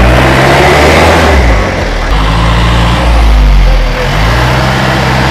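Loaded truck's engine revving hard in three surges, rising and easing between them, as it labours on a steep hill track.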